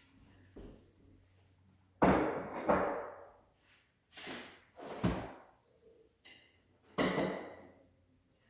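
A series of loud thumps or knocks, about five of them, spaced a second or two apart, each ringing out briefly. The loudest come about two seconds in and near seven seconds in.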